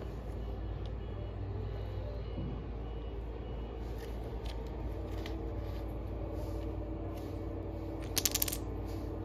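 Wooden domino blocks on a hard tiled floor: a few light clicks as single blocks are set down, then a quick clatter of several blocks knocking together and falling about 8 seconds in. A steady low hum runs underneath.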